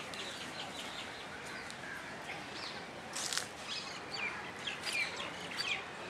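Birds chirping and calling in short, overlapping bursts over a steady background of outdoor noise, the calls coming thicker and louder in the second half.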